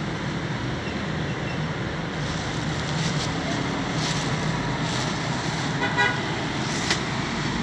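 Steady background noise, with a brief faint toot about six seconds in and a couple of light clicks.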